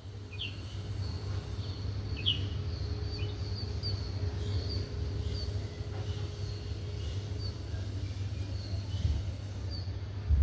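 Small birds chirping with short, high, repeated calls and quick falling whistles, scattered irregularly over a steady low rumble.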